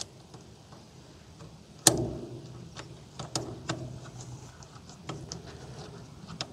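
Hand bit driver tightening the clamp bolt of a dropper-post lever on a bike handlebar: one sharp click about two seconds in, then a string of irregular lighter clicks and ticks.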